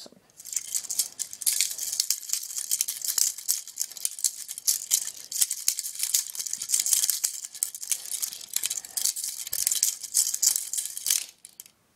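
Fake handcuffs rattling and jangling as they are swung and spun like nunchucks: a dense run of fast metallic clicks that stops about eleven seconds in.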